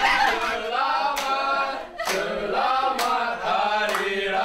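A group of people singing together without instruments, with a sharp tap about once a second.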